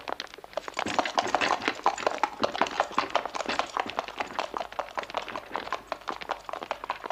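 A horse's hooves clip-clopping on the street as a hansom cab pulls away. Rapid, irregular hoofbeats set in about a second in, with footsteps mixed in.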